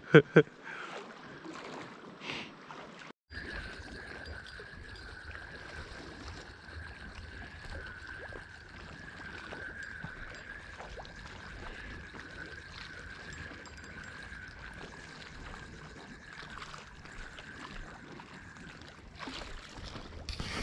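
Wind on the microphone and sea water moving at the shore, a steady low rumble and hiss, with a thin steady whine over it. A few sharp knocks come right at the start.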